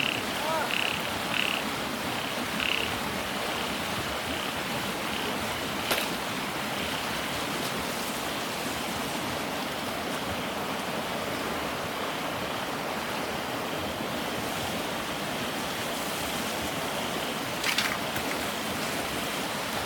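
Frogs calling over a steady wash of water noise from rain and floodwater, the calls pulsing several times in quick succession in the first few seconds and then carrying on fainter. Two short sharp knocks, about six seconds in and near the end.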